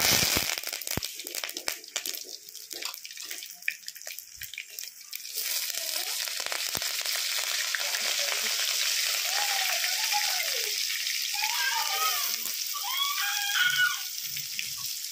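Curry leaves and spices dropped into hot oil in an aluminium kadai, hissing and crackling sharply at once. From about five seconds in it settles into a denser, steady sizzle with green chillies frying. The sizzle drops near the end as sliced shallots are tipped in and cool the oil.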